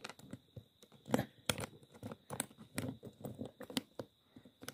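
Metal zipper pulls clicking and rattling against a suitcase's three-digit combination lock as they are pushed into its slots to lock it: a run of small, irregular clicks.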